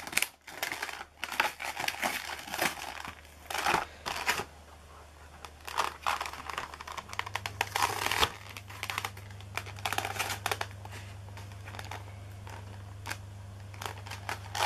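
Clear plastic blister packaging crinkling and crackling irregularly as hands pull it open and handle it.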